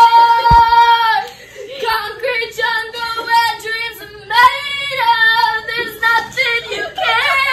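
A young woman singing loudly without accompaniment, holding a long high note that ends about a second in, then carrying on the melody.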